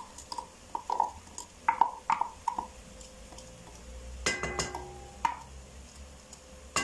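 Cooking utensil tapping and scraping against a pan in a series of short clicks, with one louder ringing clank a little over four seconds in.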